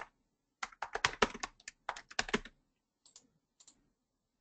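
Typing on a computer keyboard: a quick run of keystrokes lasting about two seconds, then a few faint clicks near the end.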